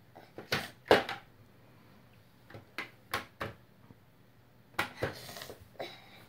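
Plastic shape-sorter blocks clacking and knocking against a hollow plastic shape-sorter cube and its lid: a string of sharp separate clicks, with a longer scraping rattle about five seconds in.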